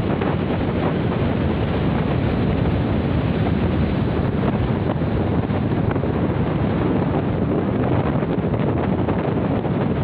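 Wind blowing across the microphone, a steady low noise, over surf washing in on a sandy beach.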